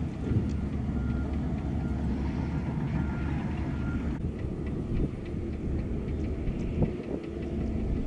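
Heavy earthmoving machinery with a diesel engine running steadily, a low engine rumble with a few faint clicks and knocks on top.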